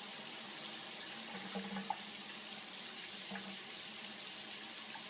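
Steady hissing noise like running tap water, with a faint low hum underneath.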